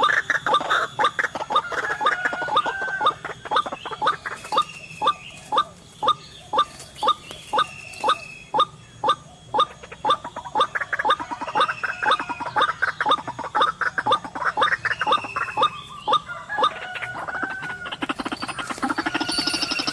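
White-breasted waterhen calling: a long series of sharp repeated notes, about two a second, running into a faster, denser rattle near the end.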